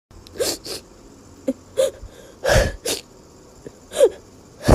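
A cartoon character's crying sound effect: a string of short sobs and gasping breaths, some with a brief wavering wail.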